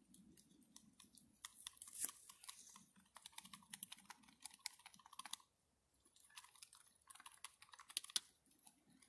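A whisk beating beer batter in a plastic bowl: a quick, uneven run of light clicks and taps against the bowl, pausing briefly a little after halfway.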